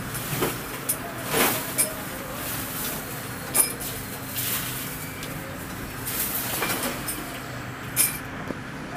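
Metal lathe in a workshop running with a steady hum, with sharp metal clinks and knocks at irregular moments.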